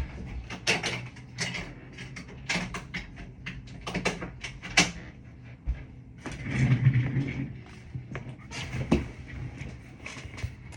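A run of sharp clicks and knocks, like things being handled and set down, with a louder low rumble of movement partway through.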